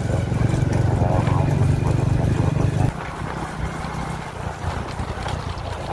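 Motorcycle engine running while riding. It is louder for about the first three seconds, then drops suddenly to a quieter, steady run.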